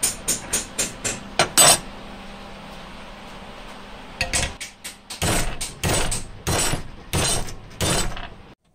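Hammer striking a steel bracket clamped in a bench vise to bend it to shape. There are quick light metallic taps in the first two seconds, then from about halfway in a run of heavier blows about two-thirds of a second apart.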